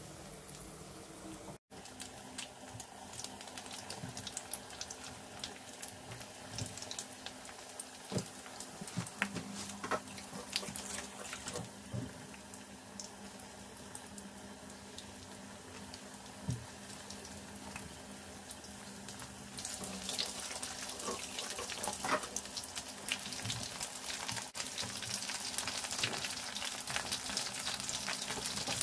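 Battered chicken pieces deep-frying in hot oil in a pan: a steady sizzle with scattered crackles and pops, turning louder and busier about two-thirds of the way through.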